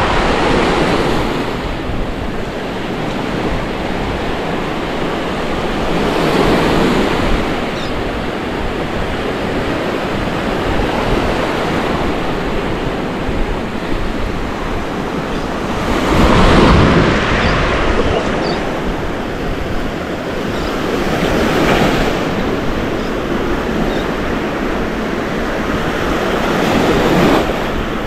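Small Gulf of Mexico surf breaking and washing up onto a sandy beach: a steady wash that swells every several seconds, loudest about two-thirds of the way through.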